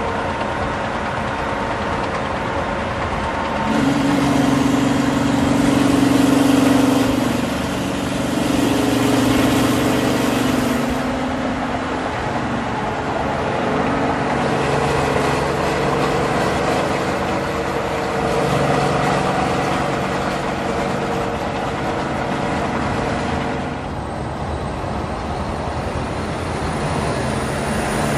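Peterbilt semi trucks' diesel engines running at highway speed alongside, over tyre and wind roar. The engine drone swells louder about four seconds in and holds for several seconds before settling back.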